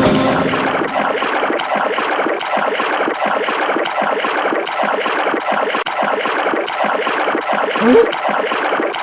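Rushing, splashing water running steadily, with a short rising squeak about eight seconds in.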